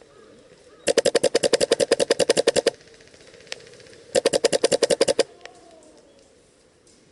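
Airsoft gun firing two full-auto bursts: a long one of about twenty shots at roughly eleven a second, then a shorter one of about ten shots a little over a second later.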